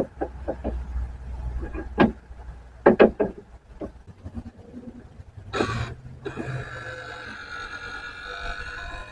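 Scattered sharp knocks and clunks of parts being handled while a power window motor is worked into a car door. About halfway through there is a short rasping burst, then a faint steady hum.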